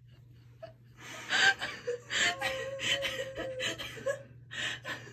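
Excited gasping and laughter from women's voices, starting about a second in and coming in short choppy bursts.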